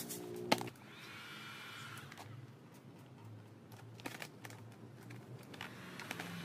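Music cuts off with a sharp click about half a second in. After that, a sheet of vinyl wrap film crinkles and crackles as it is handled, with scattered light clicks.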